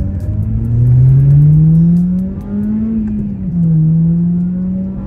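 2006 Acura RSX Type S's 2.0-litre four-cylinder engine pulling hard under acceleration, its pitch climbing steadily, then dropping as the driver upshifts about three and a half seconds in before climbing again.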